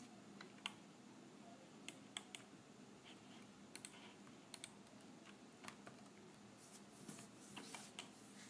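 Faint computer keyboard keystrokes and mouse clicks, scattered single clicks with a quicker run of keystrokes near the end, over a low steady hum.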